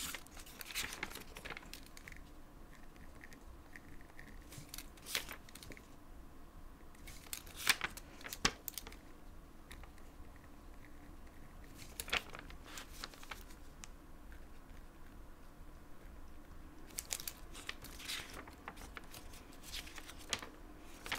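Paper notebook pages rustling and crinkling as they are lifted and turned by hand. The sound comes as scattered soft crackles, with a couple of sharper ones about eight seconds in and a cluster near the end.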